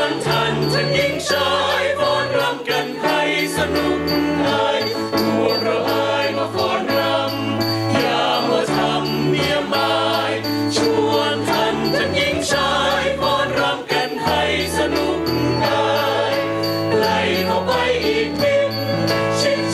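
Mixed choir singing a Thai song in close harmony over musical backing with a stepping bass line and a steady, high clinking beat.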